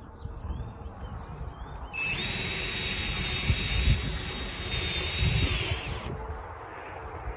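Cordless drill running under load as it drives a screw through a roof hatch's mounting flange into the camper roof. The steady motor whine starts about two seconds in, holds for about four seconds and then stops.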